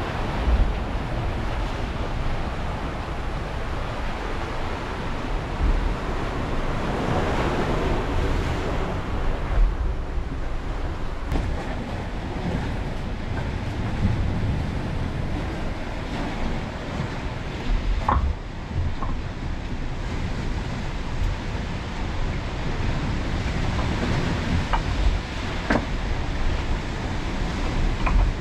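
Sea waves washing on the shore with wind buffeting the microphone; the wash swells about seven seconds in, and a few light clicks come in the second half.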